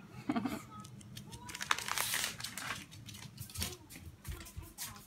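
Crinkly rustling with scattered light clicks, densest about two seconds in, and a soft low knock about four seconds in.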